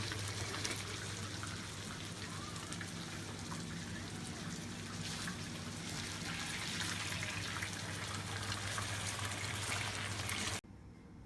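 Tuna pieces frying in hot oil, a steady sizzle that cuts off abruptly near the end.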